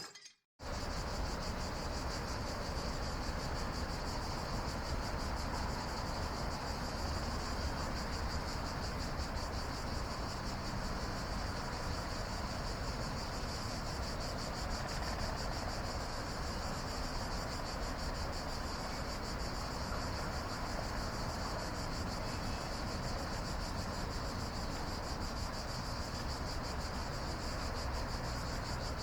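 Night chorus of cicadas: a steady, unbroken high-pitched buzzing that starts about half a second in, over a faint low rumble.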